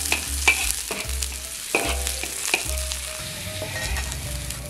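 Food sizzling as it fries in a pan, stirred with a utensil that clicks and knocks against the pan many times.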